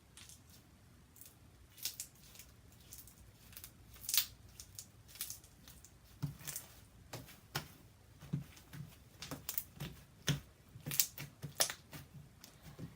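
Slime being stretched and pressed by hand, giving irregular sticky clicks and small snaps, sparse at first and more frequent in the second half.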